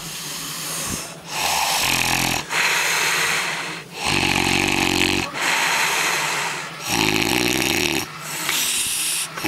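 A man snoring loudly: repeated heavy snores, each a low buzzing stretch alternating with breathy hissing, about every two to three seconds.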